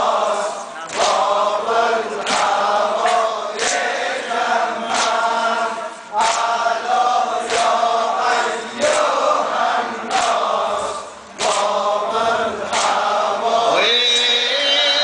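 A man's voice chanting a Shia mourning lament (noha) into a microphone, the melody rising and falling in phrases. Sharp beats, about one a second, keep time under the chant.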